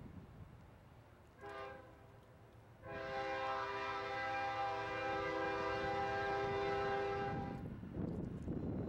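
Norfolk Southern ES44DC diesel locomotive's air horn: a short blast about a second and a half in, then a long blast of about five seconds, the close of the grade-crossing horn signal. A low rumbling noise follows near the end.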